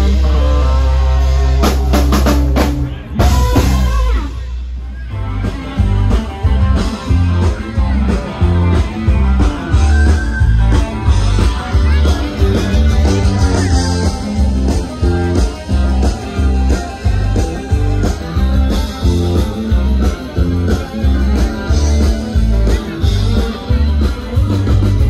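Live rock band playing instrumentally through a PA: electric bass, guitar and drum kit. A held low chord with drum hits opens, the sound drops off briefly about four seconds in, then the band comes back in with a steady driving beat.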